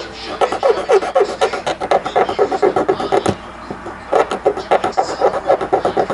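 Music with a fast, steady beat, with a click and a brief dropout a little past three seconds in.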